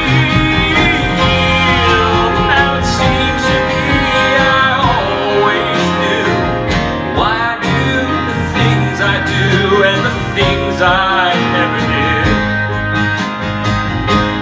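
Small acoustic band playing a slow folk-country ballad live: acoustic guitars, fiddle and upright bass, with a man singing over it.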